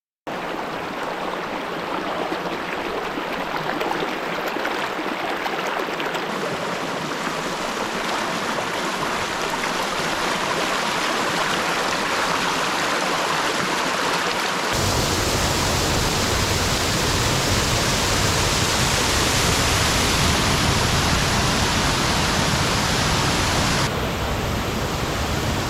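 Upper Sloan Bridge Falls, a small waterfall, rushing steadily. The sound changes abruptly about halfway through, becoming louder and deeper.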